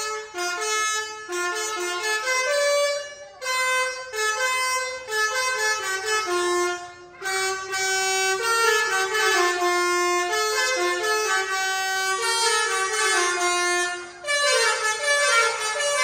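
A tour bus's multi-tone telolet (Basuri) air horn played as a tune, note by note in quick steps up and down, with a few short pauses between phrases.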